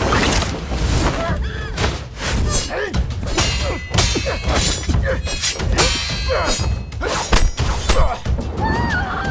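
Dramatic score music with fight-scene sound effects: a string of hard thuds, whacks and crashing hits, the sharpest about four seconds in and again near the end.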